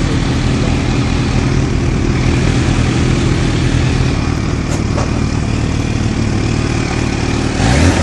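Kawasaki Ninja H2's supercharged inline-four running steadily at low revs while the bike rolls slowly, with the revs starting to rise near the end.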